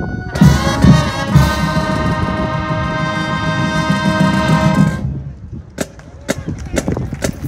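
Marching band brass section holding a loud sustained chord over bass drum hits for about five seconds, then cutting off, leaving a few sharp isolated percussion hits.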